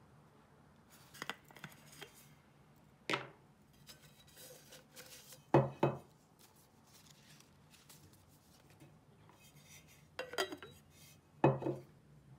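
Handling a pink Starbucks tumbler with a stainless-steel cup and a black plastic lid on a wooden table: a handful of separate knocks and clicks as the cup and lid are set down and picked up, the loudest about halfway through and again near the end.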